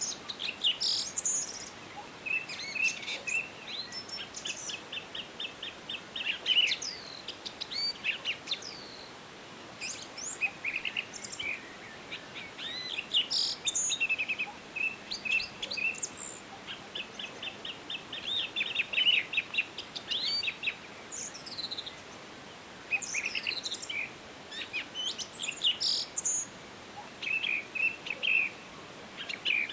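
Several songbirds singing at once: overlapping chirps, quick trills and downslurred whistles, over a faint steady hiss of forest background.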